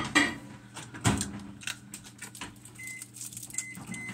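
Microwave oven keypad being worked: a knock and some clatter, then three short high beeps near the end as the heating time is entered.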